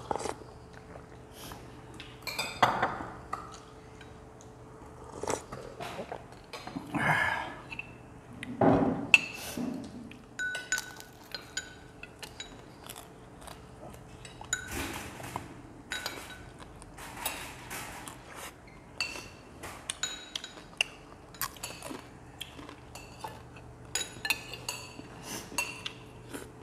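Metal spoons clinking against ceramic bowls and plates and glasses being set down on a table while two people eat: many short, sharp clinks, some ringing briefly, with a few louder, longer eating noises mixed in.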